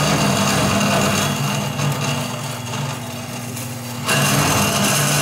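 Vertical bandsaw running, its blade cutting through a bent metal exhaust header tube under a steady motor hum. The cutting noise eases off for a couple of seconds in the middle and comes back strongly about four seconds in.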